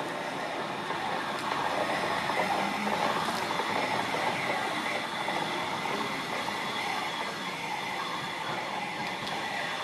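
A train running along the tracks: a steady rush of rolling noise that swells a few seconds in and eases off a little.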